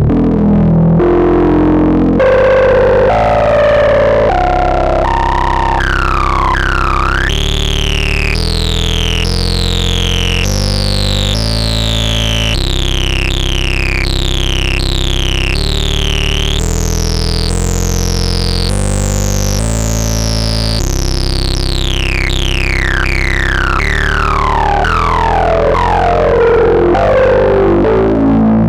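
Moog Subsequent 25 analogue synthesizer playing a sequenced pattern of low, sustained notes that change about once a second. A resonant filter sweeps down in pitch on every note, giving a repeated falling 'zap'. The sweeps grow brighter over the first several seconds and close down again near the end.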